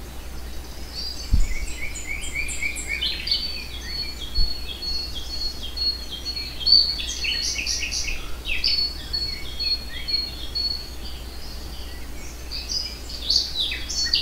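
Several small birds chirping and singing in quick repeated notes, with a steady high trill running under them from about three seconds in. Two brief low thumps come about one and four seconds in.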